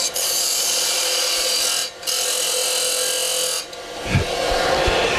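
Parting tool plunging into a spinning wooden spindle on a lathe, cutting down to the depth of a cove, a steady hissing scrape of the cut. It breaks off briefly about two seconds in, stops about three-quarters of the way through, and a few low knocks follow.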